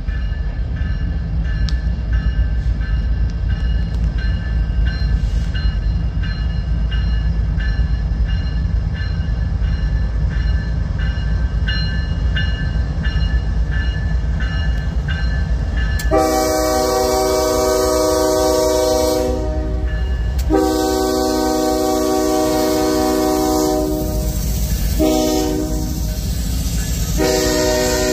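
Freight locomotives rumbling on approach, with a bell dinging steadily. About sixteen seconds in, the lead locomotive's air horn sounds the grade-crossing signal: two long blasts, a short one, then a final long blast.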